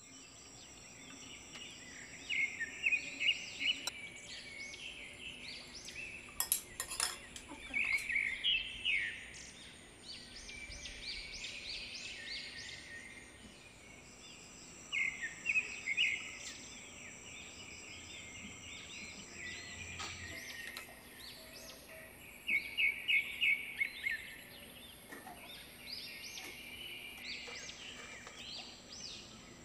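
Birds chirping in repeated short bursts of quick rising notes, with a few sharp clinks.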